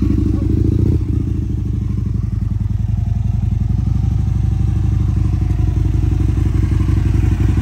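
A 1000 cc sport motorcycle engine idling steadily, with a fast, even exhaust pulse.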